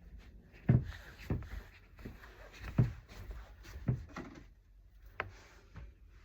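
A few dull thumps and knocks, about four over three seconds, then a sharp click: objects being handled and set down.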